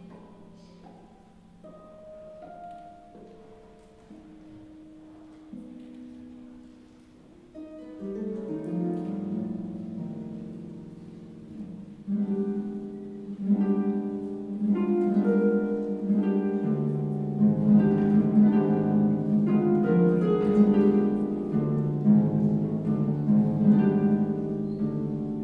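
Venera Grand Concert 47-string pedal harp played solo: a few sparse single notes ring out quietly, then about eight seconds in the playing thickens into rippling arpeggios and chords that grow steadily louder, with deep bass notes joining past the midpoint.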